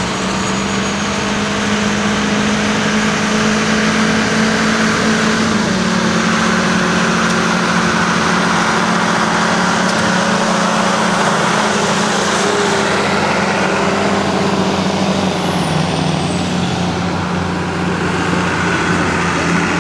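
1997 Ford pickup truck's engine running hard under load, pulling a sled in first gear of high range. The engine note holds steady, then drops slightly in pitch about six seconds in and again about fifteen seconds in as it bogs under the growing load.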